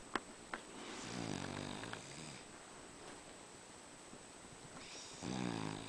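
A sleeping furry pet snoring: two long snores, one about a second in and one near the end, after a couple of sharp clicks at the start.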